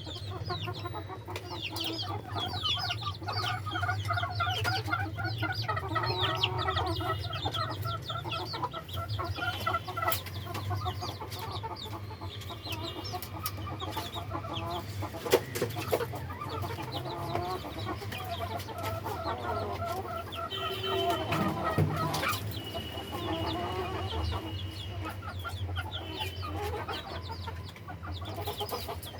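Many chickens clucking and calling at once over a steady low hum, with one sharp click about halfway through.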